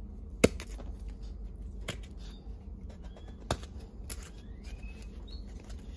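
A few sharp clicks and taps from handling a hard plastic helmet speaker mount, the loudest about half a second in, with fainter ticks between.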